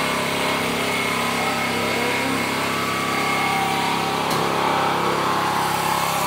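Small portable generator's engine running steadily at a constant speed.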